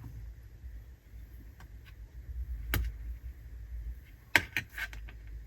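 Scattered small clicks and taps of small laptop hinge parts and tools being handled on a workbench. There is one sharp click about three seconds in and a quick run of several clicks near the end, over a low steady hum.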